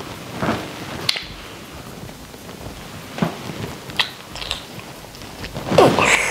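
Kissing on the lips: soft, wet lip smacks and sucking clicks, scattered irregularly, with a louder burst of smacks near the end.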